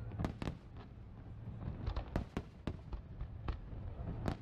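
Aerial firework shells bursting: about a dozen sharp bangs in quick, irregular succession over a steady low rumble.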